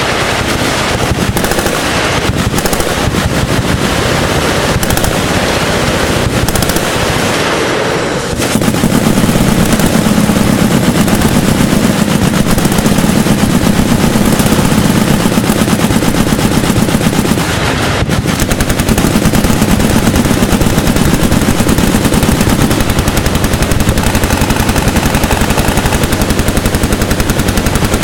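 Machine guns firing in sustained, overlapping automatic fire, the shots running together almost without a break. There are short dips about eight seconds in and again around eighteen seconds.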